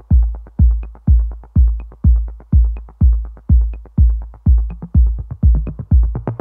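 Background music: a deep, electronic-style kick drum on a steady beat, about two hits a second, with a light click on every other beat.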